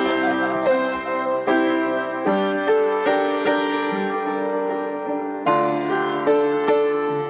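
Background music: a gentle piano melody of single struck notes, each fading out before the next.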